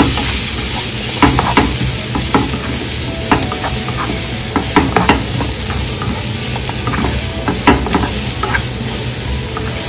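Sliced carrots, bell pepper and onion sizzling in oil in a non-stick frying pan while a spatula stirs them, with irregular scrapes and taps of the spatula against the pan over a steady frying hiss.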